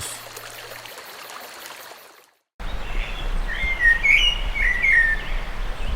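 A small songbird sings a few short chirping phrases over steady outdoor background noise. The song starts after a brief cut to silence.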